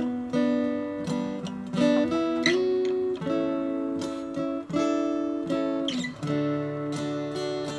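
Acoustic guitar music, strummed and plucked chords with a new chord struck every second or so.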